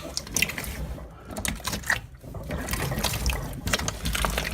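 A big mass of homemade glue-and-borax slime squished and pulled by hands, making wet squelching and irregular popping sounds.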